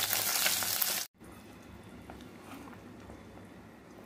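Catla (bhakura) fish pieces sizzling in hot oil in a kadai, a dense hiss that cuts off abruptly about a second in. After that only a faint low background with a few small ticks remains.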